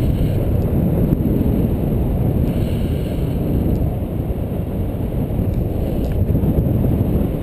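Airflow from a paraglider in flight buffeting the camera's microphone: a steady, loud, low rumble of wind noise.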